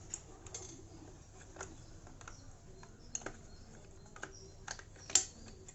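Light plastic clicks and taps as the emergency light's unscrewed plastic casing is handled and pried open, a scattering of separate clicks with a louder one near the end.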